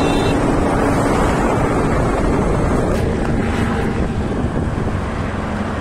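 Wind buffeting the microphone of a rider on a Honda Activa 6G scooter at road speed, over a steady rush of road and engine noise.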